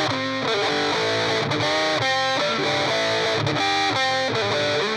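Les Paul-style electric guitar with P90 pickups, switched to the middle pickup position, playing a lead line through a metal distortion pedal into a Marshall amp: a run of quickly changing single notes.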